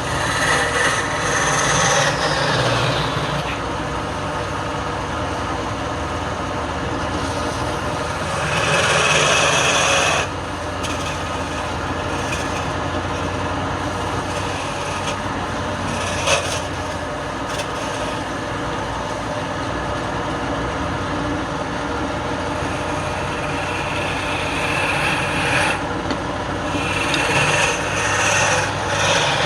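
Wood lathe running with a steady motor hum while a tool or abrasive rubs and scrapes against the spinning wood. The scraping grows louder about eight to ten seconds in and again near the end.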